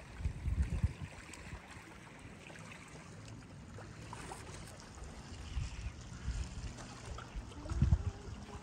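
Wind buffeting a phone microphone at the water's edge: low rumbling gusts in the first second and again near the end, over a faint steady wash of water.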